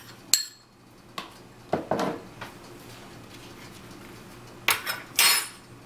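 A metal spoon clinking and scraping against a small bowl and a stainless steel mixing bowl as chopped garlic is pushed in, with a few separate clinks. Near the end comes a louder pair of clinks with a brief ring as the bowl and spoon are set down.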